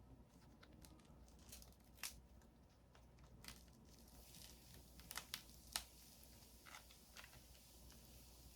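Faint tearing and crackling of a granadilla fruit's brittle shell and soft inner pouch being pulled open by hand, with scattered small sharp snaps, the loudest about six seconds in.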